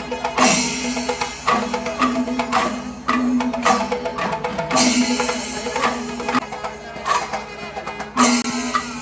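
Traditional percussion music: drums and cymbal-like clashes in a repeating pattern, with a held low note that stops and restarts every second or two.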